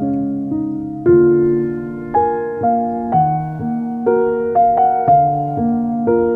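Slow, gentle background piano music. Single notes and chords are struck about once or twice a second, each left to ring and fade.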